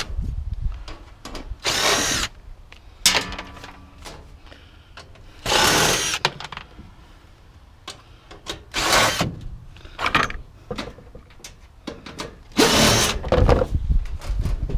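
Power drill running in about five short bursts, each under a second, with the motor spinning up and winding down each time as parts are taken off a piece of scrap.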